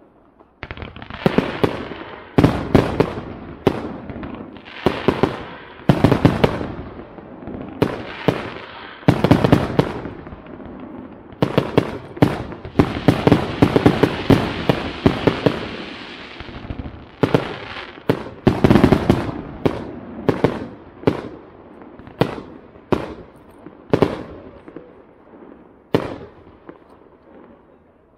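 Aerial fireworks display: a long run of sharp bangs from bursting shells and cake batteries, several close together at times, with crackling between the bangs.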